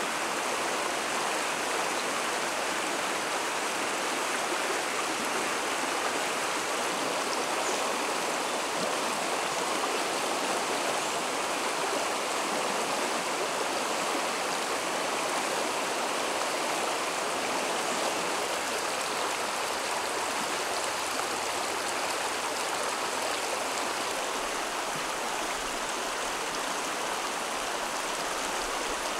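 Shallow stream flowing steadily over a rocky bed, a continuous, even rush of water over stones.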